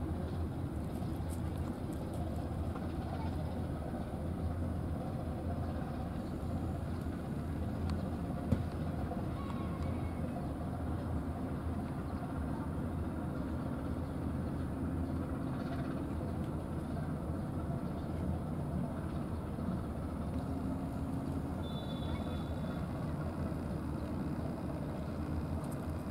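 Steady low outdoor rumble that holds even throughout, with one brief click about eight seconds in.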